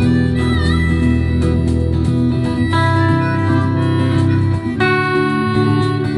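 Instrumental break between sung verses of a live song: guitar accompaniment with sustained melody notes held over it, one of them wavering early on.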